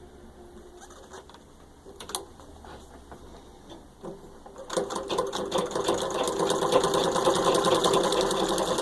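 1923 Singer 66 treadle sewing machine stitching through six layers of denim, with a few faint clicks at first. About halfway through it starts running at full speed, a fast, even run of needle strokes, and it stops suddenly at the end.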